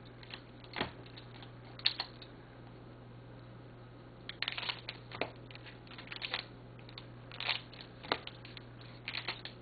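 Wrapped trading card packs being handled and opened by hand: scattered crinkles and sharp clicks of the wrappers, several coming in quick little clusters.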